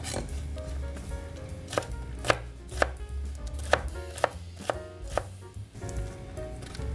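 Kitchen knife chopping cabbage core on a wooden cutting board: sharp knocks of the blade on the board, about two a second through the middle of the stretch.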